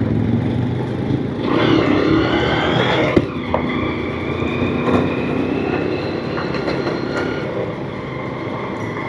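Motorbike engine running as it is ridden over a rough gravel road, heard from the rider's own bike. Its note rises for about a second and a half, then holds steady, with a sharp click about three seconds in.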